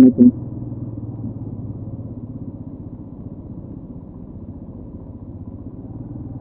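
Motorcycle engine running steadily while riding, a low, even hum that grows a little louder near the end.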